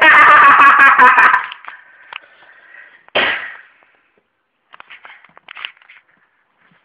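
A loud, high-pitched voice without clear words for about a second and a half, then a single sharp burst about three seconds in, followed by faint clicks.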